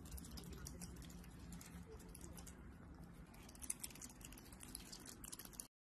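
Faint clicking and crunching of an otter chewing a piece of food, the clicks coming more thickly in the second half, over a low steady hum.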